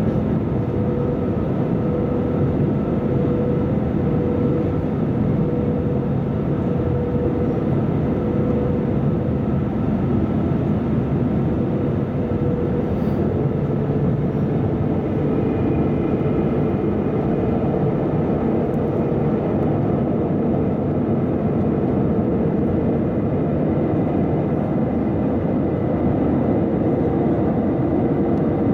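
Cabin noise of an Airbus A320-214 in flight, heard at a window seat over the wing: a steady roar of airflow and CFM56 turbofan engines with a faint wavering hum. A higher, faint engine whine joins about halfway.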